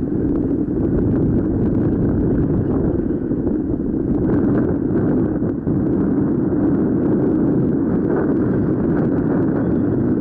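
Steady, loud rush of wind buffeting the microphone of a paraglider's camera in flight.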